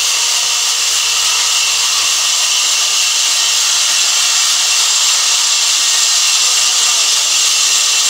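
Sawmill band saw ripping lengthwise through a thick timber slab as it is fed past the blade: a loud, steady, high hiss of the blade cutting wood.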